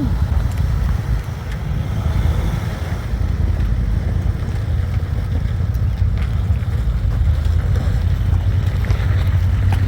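Steady low rumble of an off-road vehicle driving slowly on a dirt trail, with a few faint knocks.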